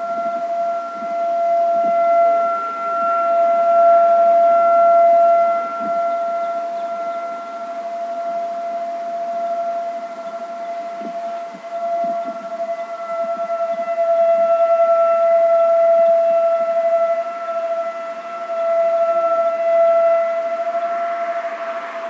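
Whelen high-powered 1,600 W rotating-speaker electronic siren sounding a steady tone that holds one pitch, swelling and fading in loudness as the speaker head turns.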